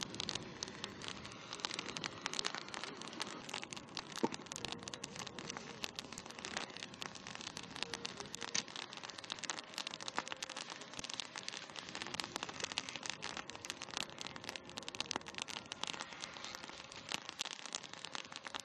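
Wood fire crackling and popping steadily, with a marmot carcass held in the flames to burn off its fur.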